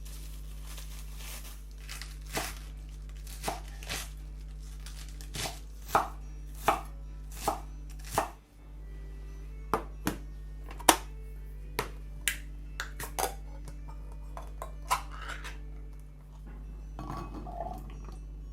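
Kitchen knife cutting on a cutting board: irregular single chops, roughly one every half second to a second, with a brief scraping rustle near the end.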